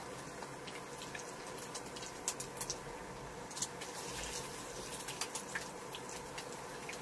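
Fried eggs sizzling in oil in a hot nonstick frying pan: a steady faint crackle with scattered sharp pops and clicks, several in a cluster a little past two seconds in and again near five seconds.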